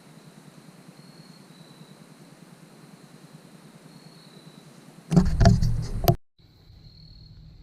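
Insects chirring faintly and steadily in a high, pulsing tone. About five seconds in, a loud burst of knocks and rustling lasts about a second and cuts off abruptly.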